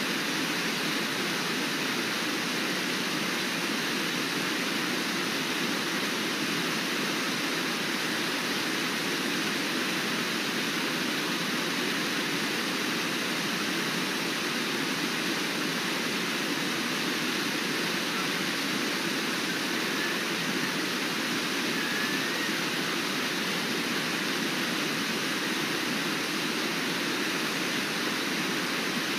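River water rushing steadily over shallow rapids, an even noise that holds at one level.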